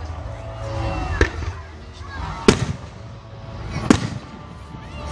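Aerial fireworks bursting: three sharp bangs about a second and a half apart, each with a short echo, over crowd voices.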